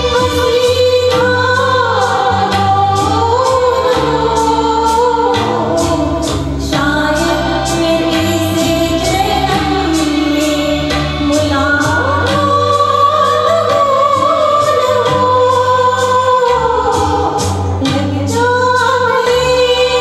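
A woman singing a Hindi film song into a handheld microphone over instrumental accompaniment with a regular percussion beat.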